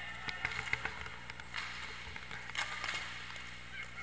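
Inline hockey players shouting to each other during play, with several sharp clacks of sticks and puck on the rink.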